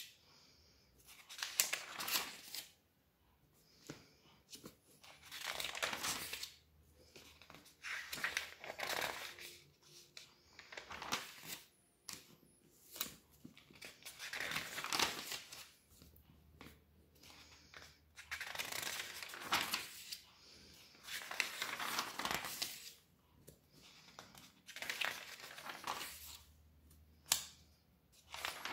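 Magazine pages being turned by hand, the paper rustling and swishing with each turn, about one turn every two seconds.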